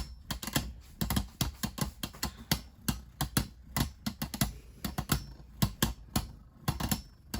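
Two spinning Beyblade tops, Vanish Fafnir and Dynamite Belial, clashing again and again: quick, irregular plastic clicks, several a second. Fafnir is stealing spin on the contacts.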